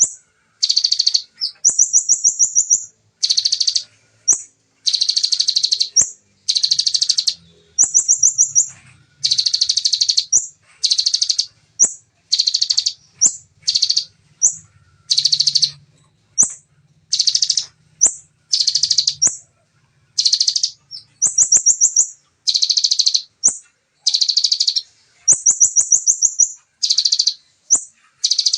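Bar-winged prinia (ciblek) singing in rapid-fire bursts: short, fast, high trills about once a second, separated by brief gaps.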